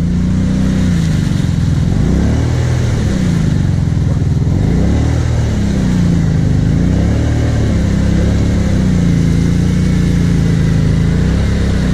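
V-twin ATV engine revving up and down over and over, its pitch rising and falling every second or two, then holding at a steady speed for the last few seconds with a brief dip near the end.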